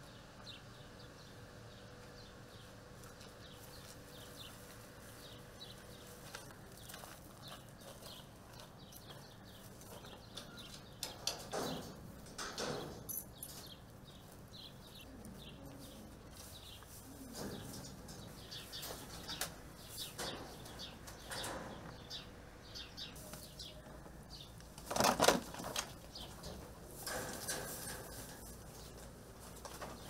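Birds' wings flapping and wire mesh rattling as birds are handled inside a wire aviary. This comes in several short bouts, the loudest about 25 seconds in, over faint high chirps throughout.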